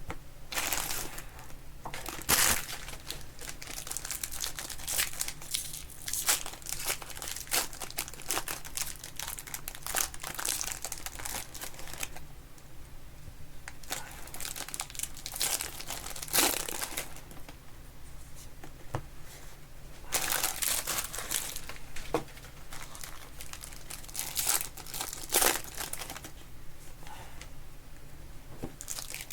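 Plastic wrapping on sealed football trading-card boxes and packs crinkling and tearing as it is opened by hand, in irregular rustling bursts.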